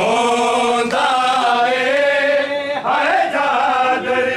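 Men's voices reciting a Punjabi noha, a Shia mourning lament, as a chant that moves in long held notes.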